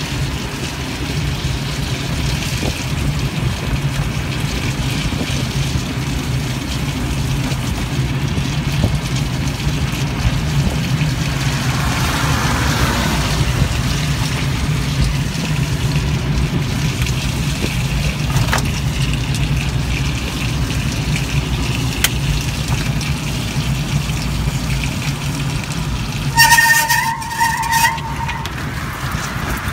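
Ride inside an ELF velomobile on a wet, slushy road: a steady low hum and road noise with rain and sleet on the windshield. Near the end, a short electronic tone sounds for about a second and a half.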